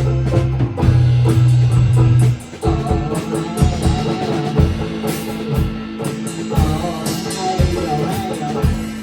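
A small rock band playing with guitar and drum kit. A loud low held note stops about two and a half seconds in, and the drums and guitar carry on.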